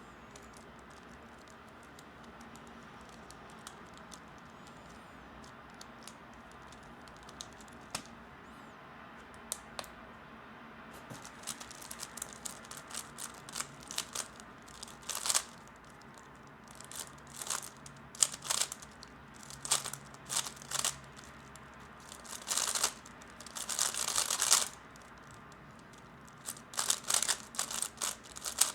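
Plastic 3x3 Rubik's Cube layers being turned, a run of quick clicking and clacking turns in bursts that starts about ten seconds in after a near-quiet stretch with only a few single clicks.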